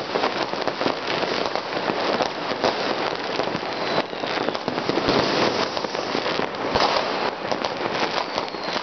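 Dense, unbroken crackling and banging of many fireworks and firecrackers going off across a city at once, with a faint falling whistle about four seconds in.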